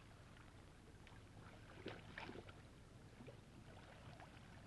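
Near silence: a faint steady low hum, with a few faint soft clicks about two seconds in.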